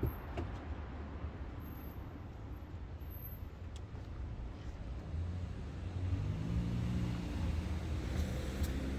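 Steady low traffic rumble with a brief click at the very start; about five seconds in, a motor engine's low hum grows louder and holds.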